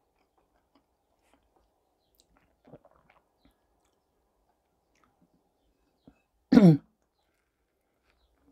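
Faint chewing, then about six and a half seconds in a single short, loud clearing of the throat that falls in pitch.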